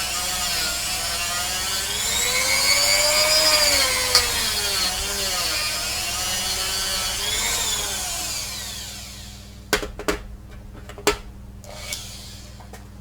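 Small rotary tool buffing a pewter cast, its motor whine rising and falling in pitch as it is pressed into the work. It winds down about nine seconds in, and a few sharp knocks follow.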